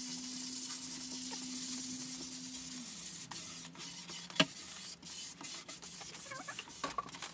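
Quiet handling noise on a wooden tabletop: light rubbing and scattered small clicks over a faint steady hum, with one sharp click about four and a half seconds in.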